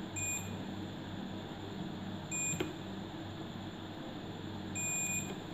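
Digital multimeter's continuity buzzer giving three short, high beeps about two seconds apart as the probes touch capacitors on a phone motherboard; each beep marks a capacitor reading as shorted. A light click sounds near the middle, over a steady low hum.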